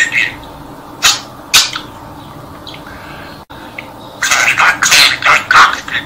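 Pet budgerigar chattering in its high, scratchy voice: two short calls about a second in, then a long run of rapid chatter from about four seconds.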